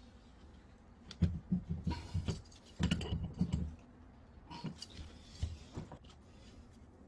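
Brass plumbing fittings and a hand tool being handled at a wall water outlet: irregular knocks and rustling in clusters, then a few small metallic clicks near the end.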